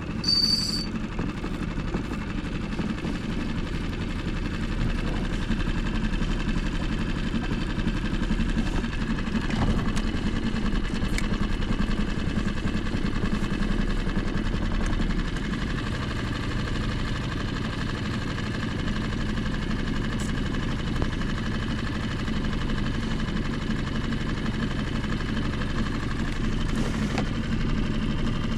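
An engine running steadily at an even, low speed, with a brief high-pitched tone about half a second in.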